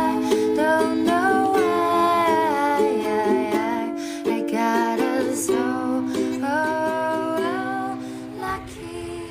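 Background music: a gentle acoustic pop song, its melody sliding between notes over sustained chords, with no words sung. It fades out gradually over the last few seconds.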